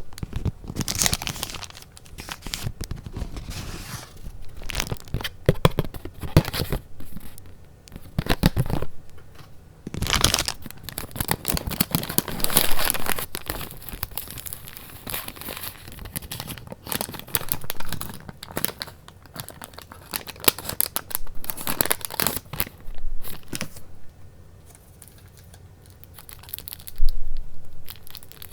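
Paper being handled and torn, rustling and crinkling in irregular bursts, with a quieter spell near the end.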